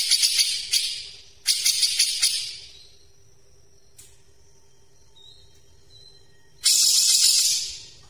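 Grey-cheeked bulbul (cucak jenggot) giving harsh, fast rattling chatter in three bursts of about a second each, the last after a pause of several seconds filled only by a few faint thin notes.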